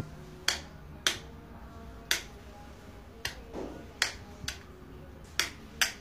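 A series of sharp snaps, about eight in six seconds, spaced unevenly, over faint held tones.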